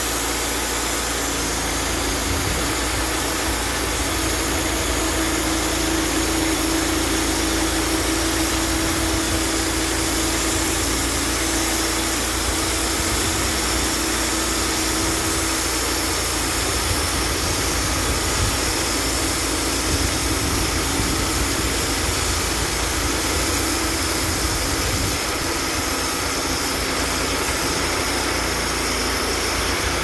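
Engine of a portable bandsaw sawmill running steadily as its band blade saws lengthwise through a box elder log. A steady hum rises out of the engine noise for several seconds early on, then fades back.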